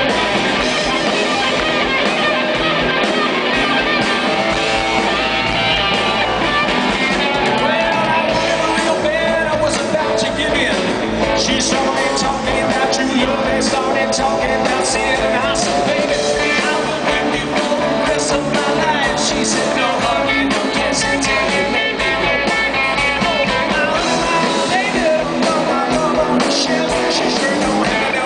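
A rock band playing live and loud through a stage PA: electric guitars, bass and drum kit, with singing, heard from the crowd. Cymbal and drum hits come through more sharply from about a third of the way in.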